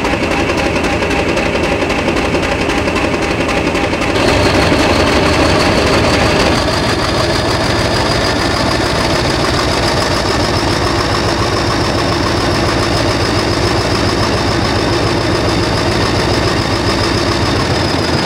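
Class 50 diesel locomotive's English Electric 16CSVT V16 engine running just after a cold start. About four seconds in it grows louder and a high whine climbs slowly, then the level settles a couple of seconds later.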